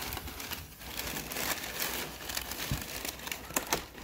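Brown kraft packing paper crumpling and rustling as a hand rummages through it in a cardboard box, with a few sharper crackles late on.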